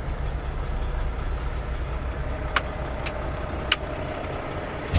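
Tractor-trailer's diesel engine idling steadily, with a few sharp clicks over it about two and a half, three and almost four seconds in, and one more at the end.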